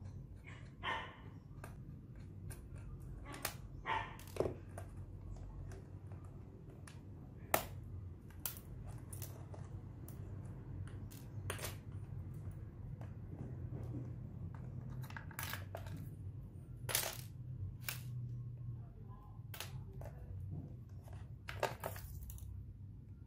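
Scattered small clicks and knocks of metal and plastic as a laptop's 2.5-inch hard drive is unscrewed and slid out of its bay, with a couple of short squeaks. A steady low hum runs underneath.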